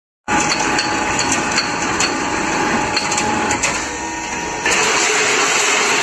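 C-purlin cold roll forming machine running, galvanised steel strip passing through its forming rollers and chain drive: a loud, dense mechanical clatter full of sharp clicks over a faint steady tone. About three-quarters of the way through, the noise turns louder and hissier.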